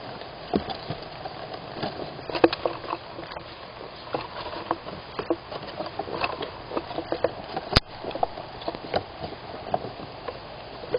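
Squirrel moving about inside a wooden nestbox: irregular scratches and taps of its claws on the wood, with one sharp click about eight seconds in.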